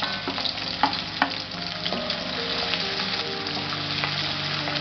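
Sliced onion sizzling in hot coconut oil in a pan, with a spoon clicking against the pan a few times in the first two seconds as it is stirred.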